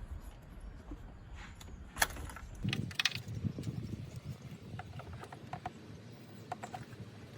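Irregular clicks and light metallic taps of hand tools and small metal parts being handled in a car's engine bay while the Vanos solenoid bolts are undone. There is a sharp click about two seconds in, a short cluster of clicks with some rustling just after, then scattered small ringing taps.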